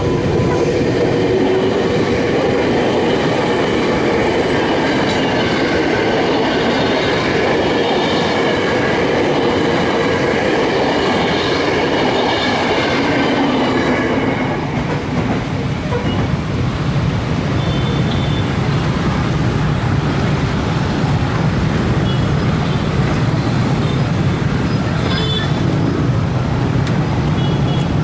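KRL Commuter Line electric train passing close by on the track, with several steady whining tones from its wheels and motors over the running rumble. The whine fades out about halfway through, leaving a steady low rumble.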